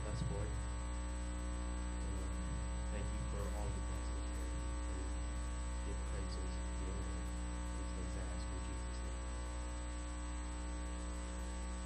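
Steady electrical mains hum with a stack of overtones, present throughout. Faint, indistinct voices come through it near the start and again about three seconds in.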